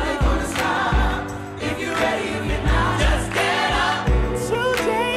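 Background pop song: sung vocals over a steady beat.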